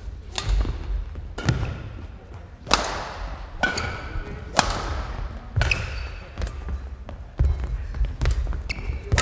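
A badminton singles rally: rackets striking the shuttlecock about once a second, with shoes squeaking and feet thudding on the court floor. Each hit rings in a large hall.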